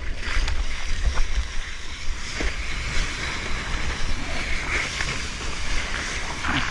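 Hands paddling and water rushing and splashing around a longboard as a surfer catches a small wave, with wind and water rumbling steadily on the board-mounted camera's microphone.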